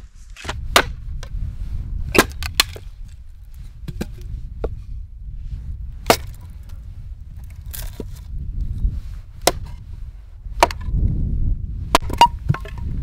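Dry wood or brush snapping: sharp, irregular cracks every second or two, over a low, uneven rumble.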